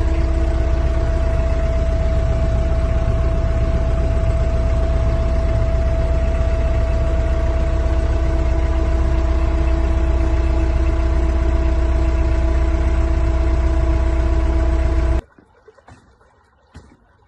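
A motor running steadily with a constant, unchanging hum and a heavy low rumble, cutting off abruptly about fifteen seconds in.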